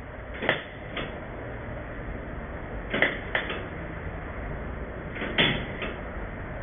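A welder laying short tack welds on a steel firewall patch panel: six brief crackling bursts in three pairs, each lasting a fraction of a second.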